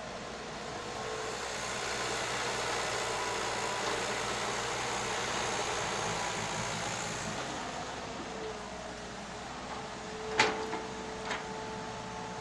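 Hitachi Zaxis hydraulic excavator's diesel engine running steadily, growing louder for a few seconds and then easing back. About ten seconds in comes a sharp loud knock, then a smaller one a second later.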